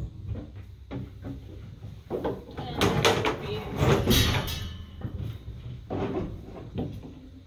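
Irregular knocks and clatter of hands working on a plastic barrel and its fitting, with a louder pitched, voice-like sound around the middle.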